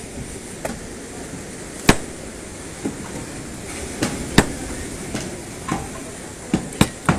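Hand demolition: about ten sharp, irregular hammer and crowbar blows on wood and concrete as a wooden deck is broken up, two of them much louder than the rest.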